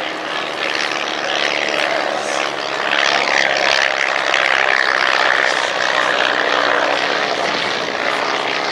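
Ryan STA light monoplane flying past with its Menasco inverted four-cylinder inline engine and propeller droning steadily. The sound grows louder about three seconds in and eases slightly near the end.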